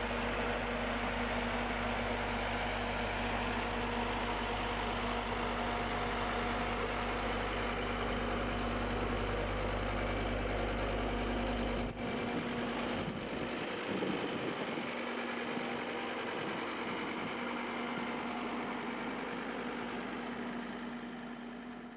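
John Deere 333D compact track loader's diesel engine running steadily. Its deep low rumble drops away about halfway through, leaving the steady hum.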